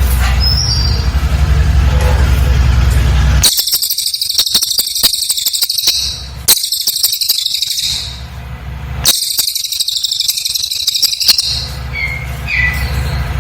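Cililin bird singing in three bursts of rapid, very high-pitched chattering trills, each about two seconds long, separated by short regular pauses. A low steady hum fills the gaps.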